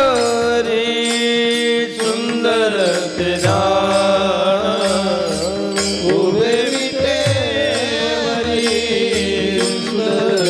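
Varkari bhajan: a man sings long drawn-out, ornamented vowels of the abhang over a steady drone. Small hand cymbals (taal) and a drum keep an even beat underneath.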